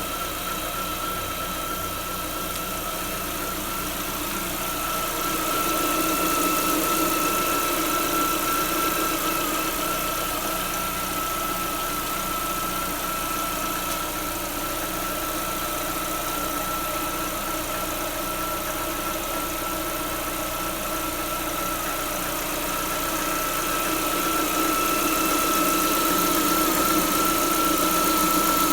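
Lada Vesta 1.6 four-cylinder petrol engine idling, with a steady high-pitched whistle from around the alternator that holds one pitch throughout. The cause of the whistle is unknown to the owner.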